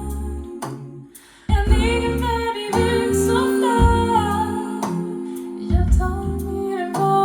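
A song with a female singing voice over heavy bass notes, played back through a hi-fi audio system as a sound demonstration. The music thins out and dips briefly about a second in, then comes back in full.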